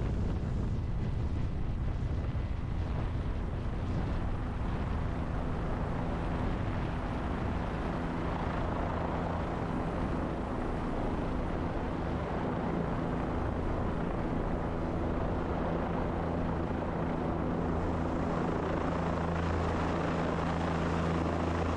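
Helicopter in flight carrying a loaded water bucket slung beneath it, its engine and rotors running steadily with a constant low hum.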